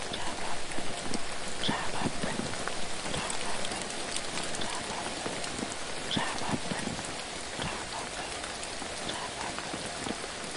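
Steady rain falling, a continuous hiss scattered with many small individual drop ticks.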